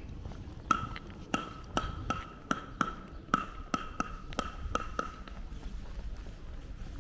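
A run of about a dozen sharp taps, roughly two to three a second, each leaving a short ringing tone at the same pitch; they begin just under a second in and stop about five seconds in.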